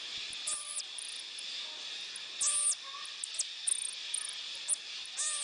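A marmoset making short, very high-pitched chirps and trills, a few scattered calls a couple of seconds apart, over a steady high hiss.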